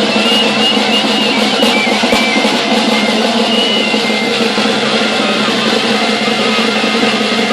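Live ensemble music: a dense, noisy texture with drums and a high melody line that steps between held notes.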